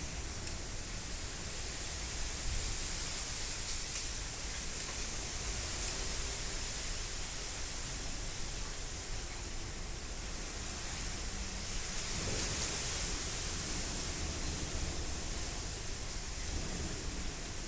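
Rain and strong wind: a steady hiss that swells a little about twelve seconds in.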